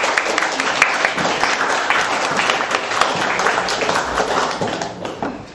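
Audience applauding: dense clapping from a small crowd that fades out near the end.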